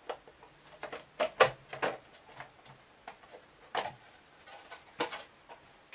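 Irregular sharp plastic clicks and knocks, about ten of them, the loudest about a second and a half in, from the body shell being taken off a Carisma GT14 micro RC touring car.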